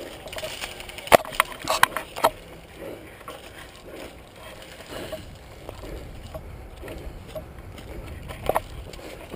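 Airsoft guns firing: a quick string of sharp pops about a second in, and two more close together near the end, over a low rumble on the microphone.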